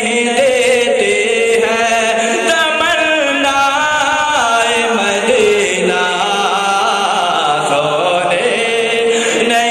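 A man's voice chanting a naat, drawn-out melismatic lines with long held notes stepping up and down in pitch, with no drums or instruments heard.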